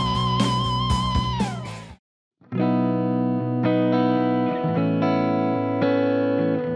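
Gibson SG Faded T electric guitar with effects: a lead note held with vibrato over a backing track with drums, sliding down in pitch and cutting off about two seconds in. After a brief silence, ringing chords start and change about once a second.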